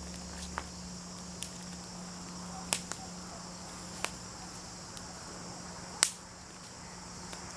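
Dry kindling twigs snapping and crackling as they are laid onto a small, newly caught wood fire: a handful of sharp, separate cracks, the loudest about three and six seconds in. Insects chirr steadily throughout.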